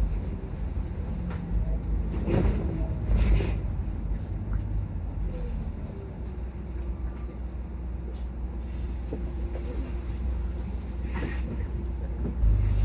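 Volvo double-decker bus heard from inside on the upper deck: a steady low engine and road rumble with scattered knocks and rattles from the bodywork. The rumble grows louder near the end.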